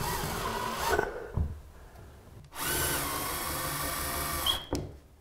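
Cordless drill-driver running in two bursts as it drives screws through a sliding-wardrobe top track into the ceiling: a short run at the start, then a longer run of about two seconds beginning about two and a half seconds in.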